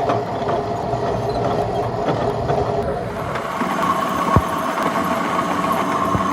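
A machine running steadily, its steady tone shifting higher about three seconds in, with one sharp click a little after four seconds.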